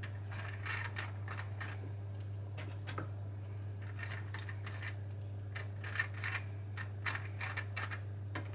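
Metal spoon scraping and tapping against a foil-lined roasting tray while stirring sauce into pan juices: a scatter of short scrapes and clicks over a steady low hum.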